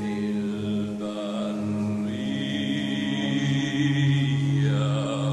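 Church choir singing long held notes in a low, chant-like style.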